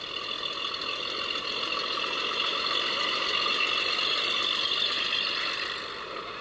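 Antique open-cab fire engine driving slowly past, its sound carried by a steady high-pitched whine over the running engine. The whine swells toward the middle and eases off near the end.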